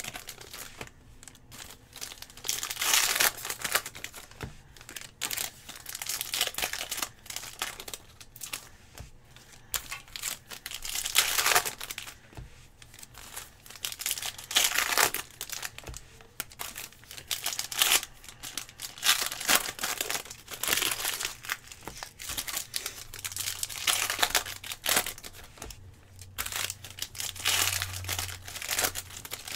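Foil trading-card pack wrappers crinkling and tearing as packs are ripped open by hand, a crackling burst every few seconds with quieter handling in between.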